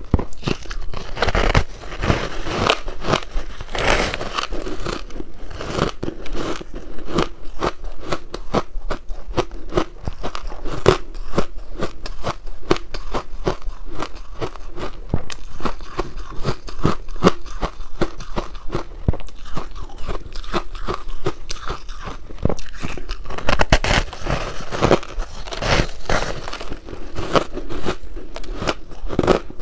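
Crunching and chewing of a slab of frozen pink ice cake: a dense run of crackling crunches as the granular ice is bitten off and ground between the teeth, with heavier bites about a second in and again about four-fifths of the way through.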